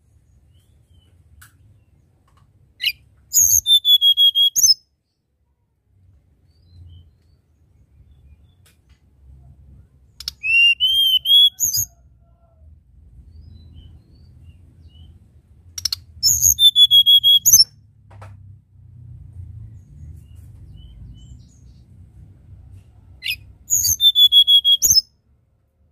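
Hill blue flycatcher (tledekan gunung) singing: four short phrases of clear, high whistled notes, each about a second and a half long, spaced several seconds apart, over a faint low background rumble.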